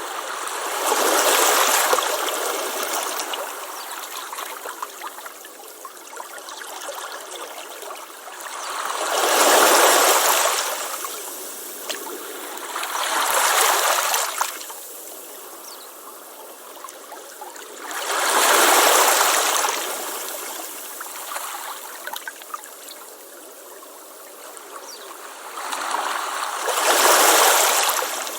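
Ocean waves breaking on a beach: five surges of surf, several seconds apart, each swelling and fading, with a softer wash of water between them.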